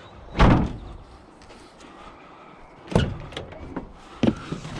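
Heavy knocks and bangs, a loud one about half a second in, another about three seconds in and a smaller one near the end, as a scrap washing machine is loaded into a van.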